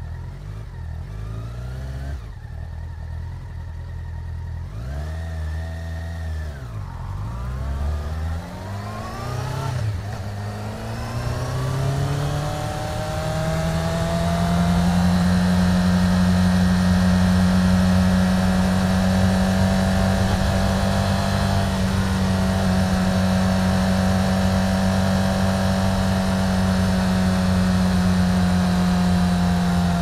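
1999 Yamaha YZF-R6's 600 cc inline-four engine, heard from the bike inside a tunnel. The revs rise and fall several times in the first ten seconds, then climb and hold at a steady high pitch as the bike cruises, with wind and road noise. It gets louder from about twelve seconds in.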